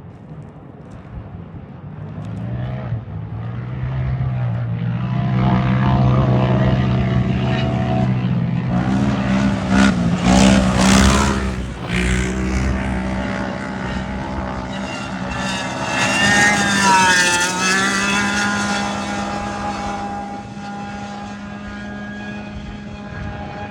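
Off-road race UTV engines droning as they pass at speed. The sound builds to a loud peak around the middle, with the pitch wavering, then a second pass peaks about two-thirds of the way through before the drone eases off.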